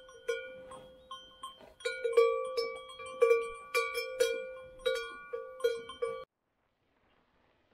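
A metal bell on a grazing cow ringing in irregular strokes, about a dozen in all, each one ringing on briefly as the cow moves its head. It cuts off abruptly about six seconds in.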